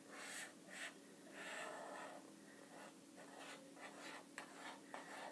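Felt-tip marker drawing on paper on a clipboard: faint, scratchy pen strokes, several in a row, with a couple of sharp ticks near the end.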